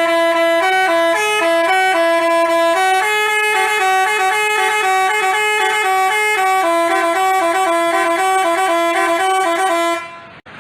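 Basuri telolet multi-tone bus horn playing a melody, two or more horn tones sounding together and stepping from note to note. It cuts off suddenly about ten seconds in, leaving a brief quieter hiss.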